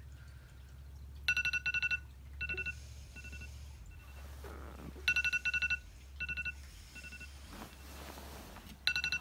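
Smartphone alarm going off: an electronic ringtone that repeats about every four seconds, three times. Each round is a quick run of pulsed high tones that starts loud and fades away.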